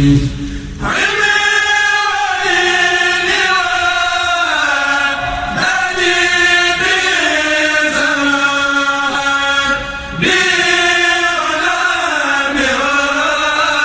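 Male kourel choir chanting a Mouride khassida in unison, unaccompanied, in long held lines that glide in pitch, with brief breath pauses about a second in and again near ten seconds.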